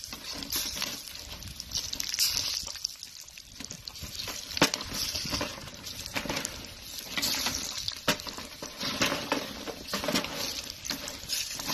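Chicharrones frying in lard and a little oil in a large pot. The fat sizzles steadily, with sharp crackles now and then, as a wooden paddle stirs the pieces.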